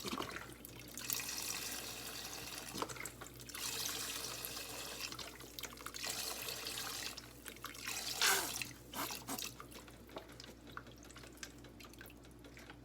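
Chicken broth pouring from a carton into a soup pot in several splashing pours, tapering off about three-quarters of the way through into a few faint clicks.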